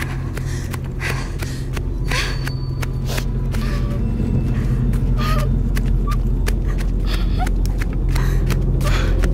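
Heavy, irregular panting breaths over a steady low droning score.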